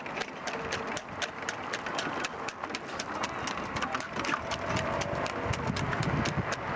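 A trotting horse's hooves clip-clopping on a paved road in a quick, even rhythm.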